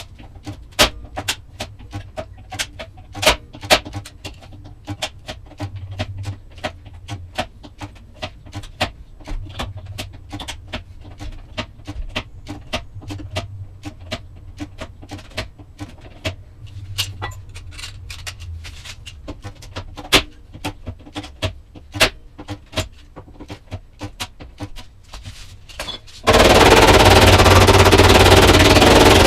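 Light, irregular hammer taps on car-body sheet metal, several a second, as a dent is worked out. About 26 seconds in, a loud, steady power-tool noise starts abruptly and drowns the taps.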